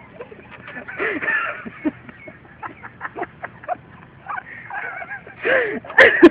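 Several people laughing, a cackling laughter with wavering voices and short sharp sounds, loudest near the end.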